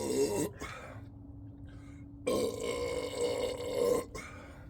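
Human burps from chugged sparkling water: the tail of one burp stops about half a second in, then a long burp starts about two seconds in and lasts nearly two seconds.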